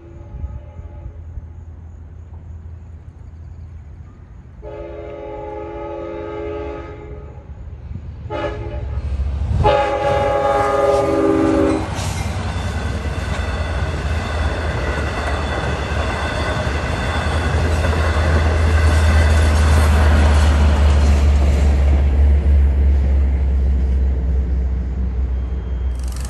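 Long Island Rail Road train sounding its horn for a grade crossing: two long blasts, a short one and a final long one, the first faint. The train of bi-level coaches then passes over the crossing with a deep steady rumble that is loudest about three-quarters of the way through.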